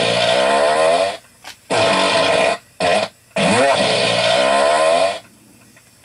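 Three long, pitched farts, one after another, each lasting about one to two seconds with a wavering pitch and short pauses between them.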